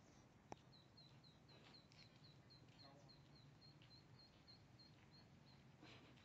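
Near silence: a faint, even run of short high chirps, about four a second, that stops near the end, with a single click about half a second in.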